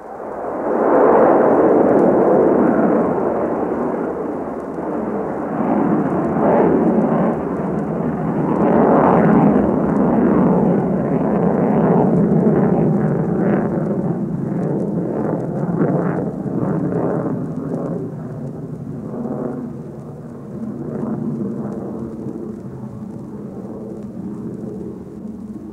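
V-2 rocket launching: a loud rumbling roar that comes in suddenly and swells within the first second. It rumbles on with uneven surges, then slowly fades. It sounds dull, with no high treble, like an old recording.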